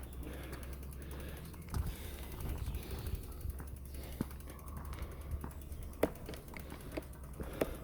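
Bicycle rear freewheel ticking steadily as the bike is pushed along on foot with the pedals still, with a few louder clicks and knocks among the ticks.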